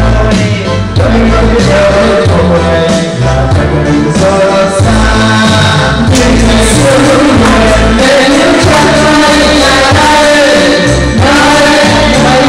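Music: a song with singing over a strong, changing bass line.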